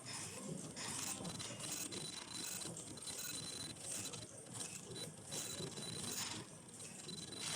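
Automatic disposable face-mask production and bag-packing machine running, with repeated mechanical clattering roughly once or twice a second over a faint steady high whine.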